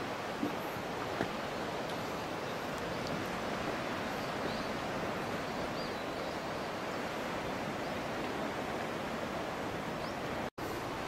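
Steady rushing noise of surf breaking against the rocky shore below, with a brief gap of silence near the end where the recording cuts.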